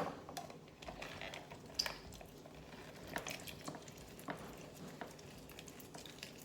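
Fresh lemons being squeezed for juice: irregular small squishes and drips with light clicks and knocks.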